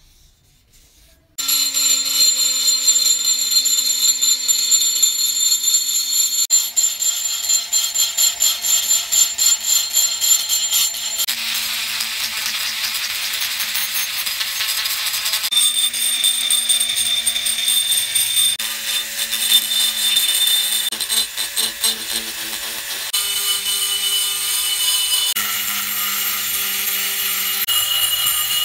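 Small pen-style rotary tool running at high speed, its bit grinding and cleaning the metal body of a meat grinder. A steady high whine starts about a second in and shifts in pitch several times as the tool is pressed to different spots.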